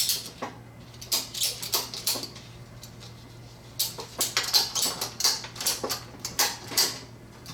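Nylon ratchet strap being handled and worked: irregular clicks and rattles from its metal ratchet buckle with the webbing, a few at first, then a quicker run through the second half.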